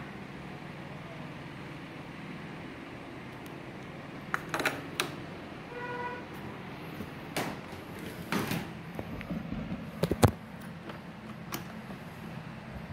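A few knocks and clicks from a hand handling the wooden table and its wiring, the loudest about ten seconds in, over a steady low hum. A short, single-pitched electronic beep sounds about six seconds in.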